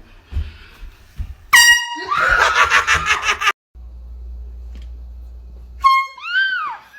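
Handheld air horn blasting about a second and a half in, its note running for about two seconds before cutting off abruptly. Near the end the air horn blasts again briefly and is followed by a high scream that rises and falls in pitch.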